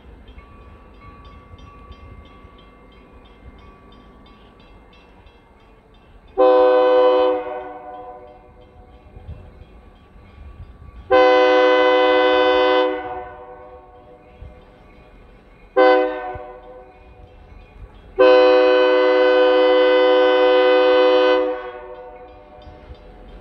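Air horn of Escanaba & Lake Superior Railroad locomotive 502, an EMD SD40, sounding the grade-crossing signal as it approaches: two long blasts, a short one, then a final long one of about three seconds, each a chord of several notes. A low rumble of the oncoming train runs between the blasts.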